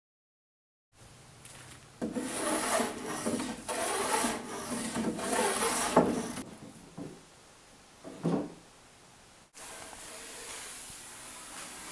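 Hand plane shaving the edge of a wooden board, a run of rasping strokes about a second each that lift curled shavings.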